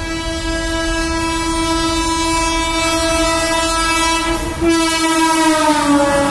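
Indian Railways WAP7 electric locomotive's horn sounding a long steady blast as the train approaches at speed. After a brief break about four and a half seconds in comes a louder blast whose pitch drops as the locomotive passes, and the rush of the passing coaches follows near the end.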